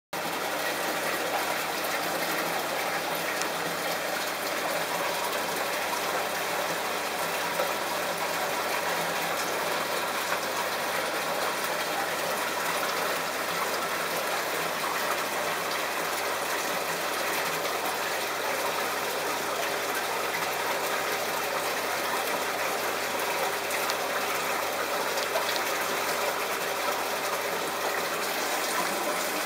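Aquarium filter running: a steady rush of moving water that stays even throughout.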